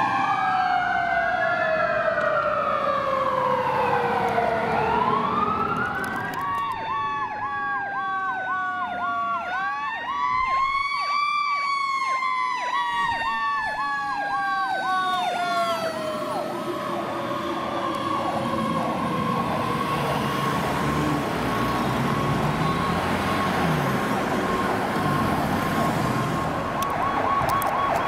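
Several fire trucks' sirens sounding together on an emergency run. Over the first few seconds one siren slides slowly down in pitch while another wails up and down. Then a rapid pulsing yelp takes over, a slow rising-and-falling siren joins about ten seconds in, and the pulsing quickens again near the end.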